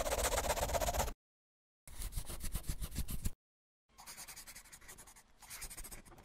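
Scribbling on paper, a sketching sound effect made of quick scratchy strokes. It comes in four short bursts with dead-silent gaps between them, and the last two are fainter.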